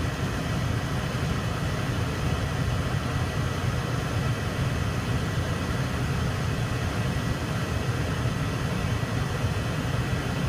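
Comfortmaker 80% gas furnace running steadily in heat mode: an even low rumble and whir from the burners, combustion blower and indoor blower motor together, with a faint steady high tone above it.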